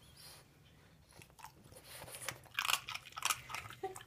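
French Bulldog crunching a crouton in its jaws: a quick run of sharp, crisp crunches from about halfway through.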